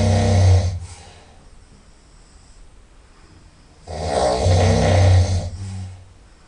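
A person snoring very loudly through the nose, each snore a deep rumble. One snore dies away just under a second in, and another starts about four seconds in and lasts about two seconds.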